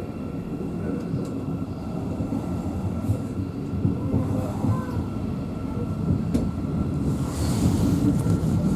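Interior sound of a Thameslink Class 700 electric multiple unit on the move: a steady low rumble of wheels and running gear with a thin steady whine above it, growing slightly louder. A brief hiss comes near the end.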